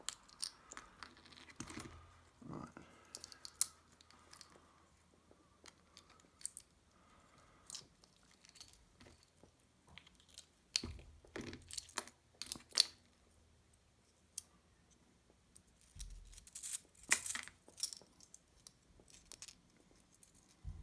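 Scattered small clicks, scrapes and rattles of a retractable keychain being taken apart by hand to free its coil spring.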